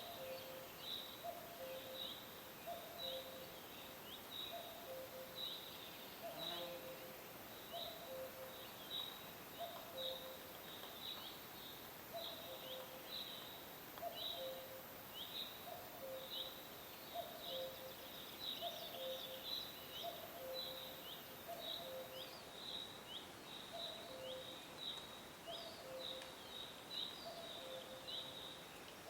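Forest birds chirping: short falling chirps about twice a second, with a lower two-note call repeating about once a second, over a faint steady hiss.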